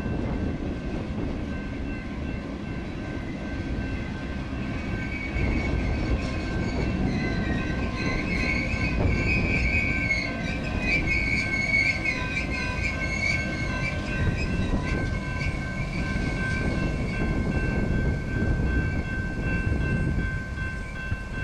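Freight train cars rolling past on steel rails at a grade crossing: a steady low rumble of wheels with some clickety-clack. Wheel squeal wavers over it, loudest through the middle. A steady high tone runs under it all. The last car clears near the end.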